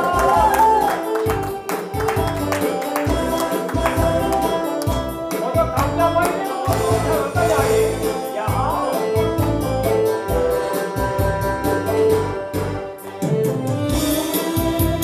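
Korean trot song with a steady beat and instrumental backing, with a melody that is sung in places.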